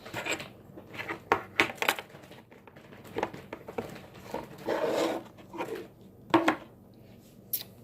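Small plastic putty containers and putty being handled: scattered sharp clicks and taps, with a short rustle about five seconds in.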